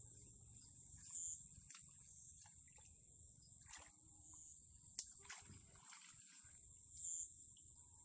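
Insects chirring steadily at a high pitch, with three brief louder chirps about three seconds apart and a single sharp click about five seconds in.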